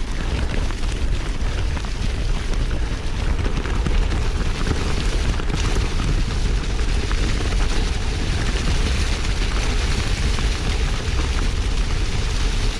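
Wind rumbling on the microphone and tyre noise as the steel Marin Muirwoods bike is ridden fast over a forest trail covered in fallen leaves. The rumble is loud and steady throughout.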